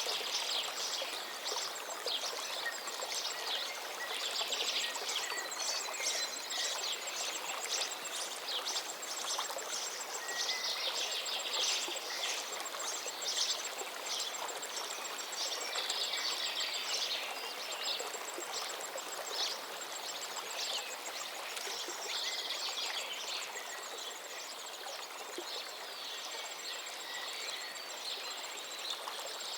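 River water rushing steadily, with many small birds chirping and trilling over it, and a faint rapid high ticking that runs through most of it.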